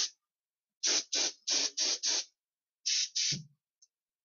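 Games Workshop spray gun spraying primer in short hissing bursts, about three a second, with a short pause a little past halfway before two more.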